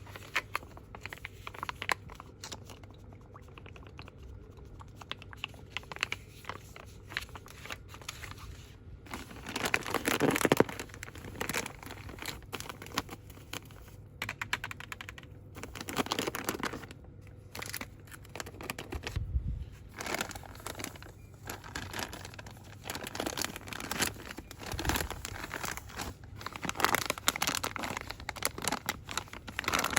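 Cosmetics and soap packaging crinkled and rustled quickly by hand, in irregular bursts, loudest about ten seconds in.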